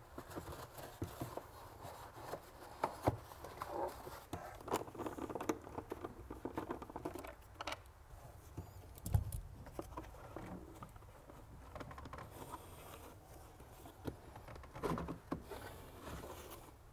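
Scattered light clicks, taps and rustling from gloved hands and tools handling the plastic air filter housing and nearby hoses and wiring, with a louder knock about nine seconds in.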